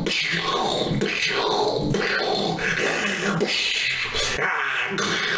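A man making fight noises with his mouth: a quick run of growls, snarls and hitting sounds, about two a second.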